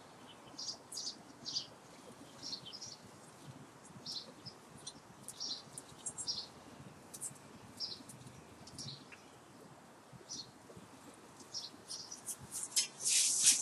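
A twelve-strand bundle of copper magnet wire being worked by hand into the slots of an electric motor stator, giving short, irregular high squeaks and scrapes, with a louder scrape near the end.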